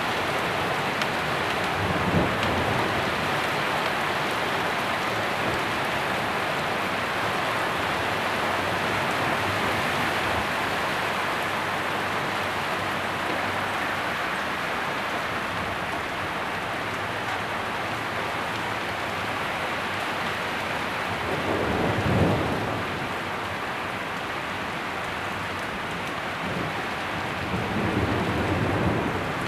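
Heavy storm downpour pouring steadily onto a garden, a dense, even hiss. Low rumbles swell up about two seconds in, at around 22 seconds (the loudest), and again near the end.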